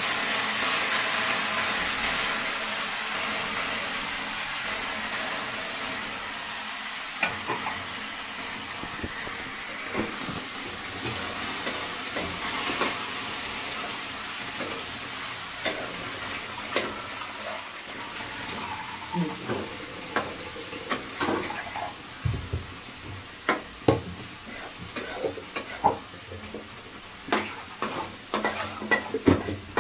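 Wet rice sizzling in a hot pan of spiced fried vegetables, strongest at first and fading over the first several seconds. A metal spoon then stirs and scrapes the rice around the pan, the clinks growing more frequent toward the end.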